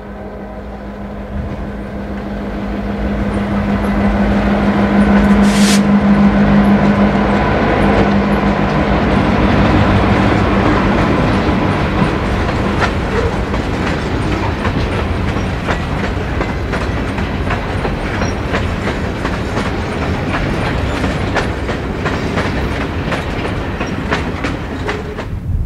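Reading Blue Mountain & Northern freight train passing: the diesel locomotives' engines drone for the first several seconds, then the wheels of the hopper cars and caboose clickety-clack over the rail joints as the cars roll by.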